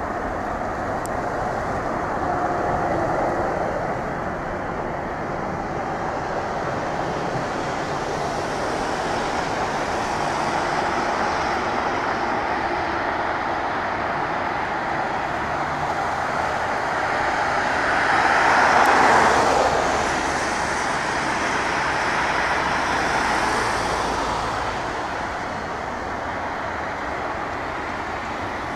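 Twin jet engines of an Airbus A350 at takeoff thrust as it rolls, lifts off and climbs away: a steady noise that swells to its loudest about two-thirds of the way through, then eases as the aircraft moves off.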